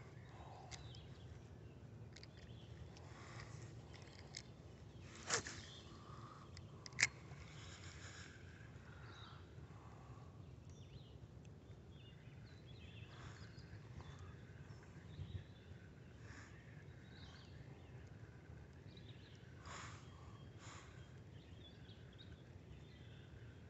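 Faint outdoor ambience at a wooded riverbank: a low steady background noise with scattered short bird chirps, and two sharp clicks about five and seven seconds in.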